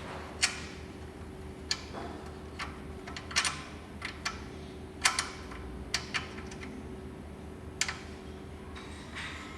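Irregular small metallic clicks and taps, about a dozen, as a screw and nut are fitted through an aluminium skid plate's rear mount: the nut is fiddly to get into place.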